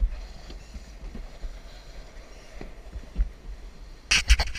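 Alpine slide sled running down the concrete track: a low rumble with occasional thumps. Loud crackling handling noise hits the camera microphone about four seconds in.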